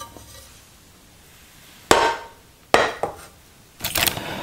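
A Todd English pot being handled and set down on a Copper Chef induction cooktop: two sharp metallic knocks with brief ringing, about two and nearly three seconds in, then a short clatter near the end.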